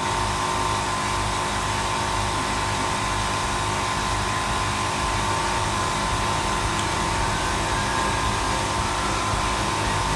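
A motor-driven machine running loudly and steadily, a constant drone with a steady hum above it and a throbbing low end.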